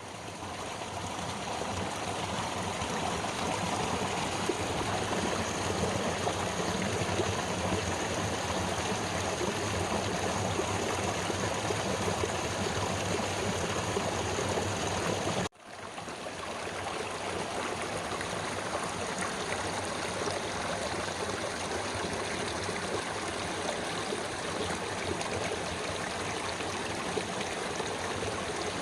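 Mountain valley stream flowing, a steady rush of water. About halfway through it cuts out for an instant and swells back in.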